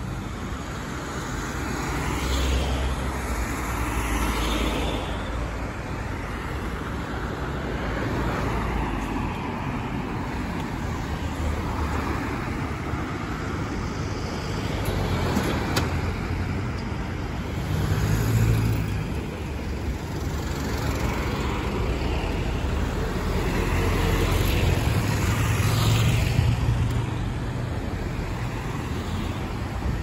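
Road traffic: cars and a light truck passing close by one after another, engine and tyre noise swelling as each goes past.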